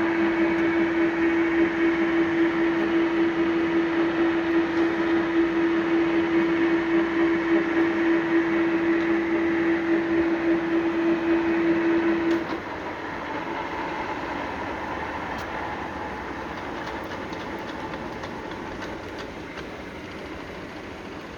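Lansing G-20 20" x 160" engine lathe running at a spindle speed of about 180 with a steady whine. About twelve seconds in the whine cuts off and the machine coasts down, its running noise slowly fading; the lathe has no spindle brake.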